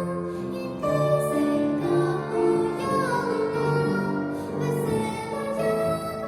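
Music: a melody of held notes, some with a slight vibrato, over lower sustained accompanying notes.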